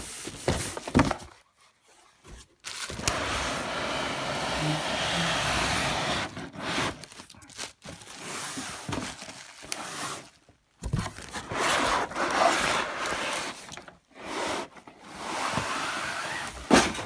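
Packaging and vacuum parts being handled during unboxing: rustling and scraping in several long stretches, with a few sharp knocks between them.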